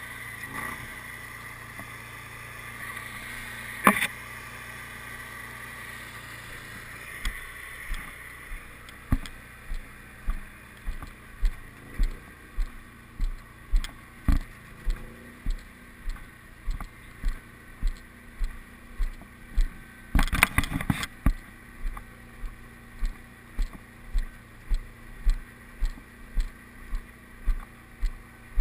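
Heavy-haul multi-axle trailer rolling along the road, heard from its rear steering position: a steady running hum. From about seven seconds in there is a regular low thump about one and a half times a second, with a sharp knock about four seconds in and a short rattle of knocks about two-thirds of the way through.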